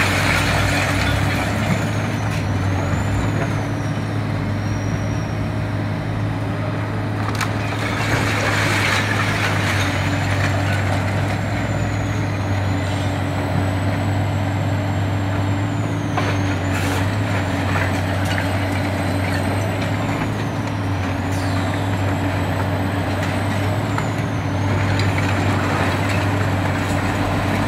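High-reach demolition excavator running steadily with a deep engine hum and a high, wavering whine, as its crusher jaws break up concrete. Sharp cracks and surges of crumbling, falling rubble come at the start, about 8 seconds in and again near the end.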